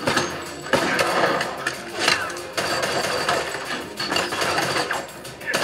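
Action-film soundtrack played over Procella P6 MKII home-theater speakers without a subwoofer: a string of sharp hits and gunshots, one every second or so, with little deep bass behind them.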